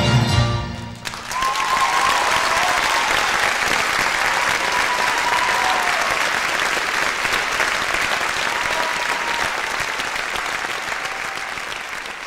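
The orchestra's final chord cuts off about a second in, then a theatre audience applauds steadily, with a few faint voices calling out over it. The applause slowly fades toward the end.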